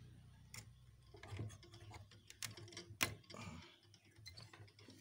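A few faint, sharp clicks and ticks from hand tools and a CRT TV circuit board being handled, the loudest about three seconds in.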